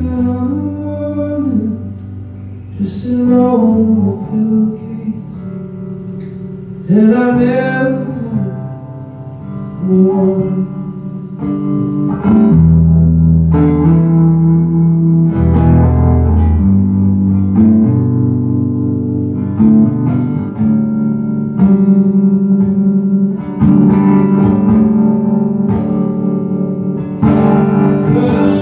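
Live solo electric guitar playing sustained chords, with a male voice holding long, wavering sung notes over roughly the first ten seconds and the guitar carrying on alone after that.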